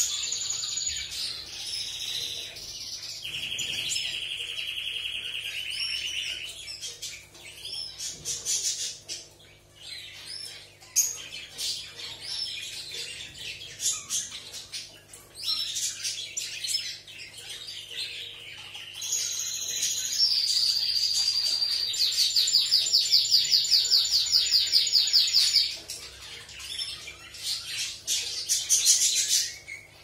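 European goldfinch singing a long, varied twittering song of rapid trills and chirps, with a lower trill a few seconds in and a long, very fast trill about two-thirds of the way through.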